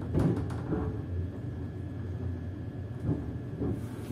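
Class 385 electric multiple unit running, heard from inside the carriage: a steady low rumble of wheels on rail with a faint, wavering traction-motor whine, and a quick run of clicks near the start and two more near the end.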